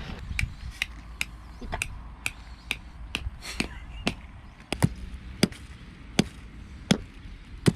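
A hammer or mallet striking repeatedly with sharp knocks, about two a second at first and a little slower toward the end, as when driving tent pegs into hard ground.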